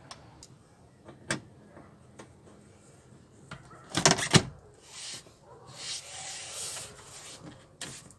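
Scattered clicks and knocks of hand work on a car door and its handle assembly. The loudest is a quick cluster of clicks about four seconds in, followed by a soft rustle lasting about a second.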